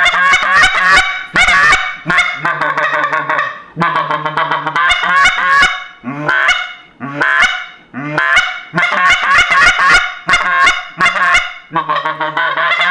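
Homemade PVC goose call, a bored-out PVC coupling with a zinc reed and a long tube, blown in loud runs of goose honks and clucks, the notes often breaking from low to high.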